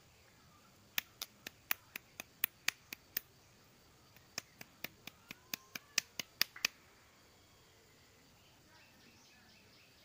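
Small glass medicine vial clicking in the fingers as an injection is mixed: two runs of sharp, quick ticks at about four a second, the first starting about a second in and the second in the middle.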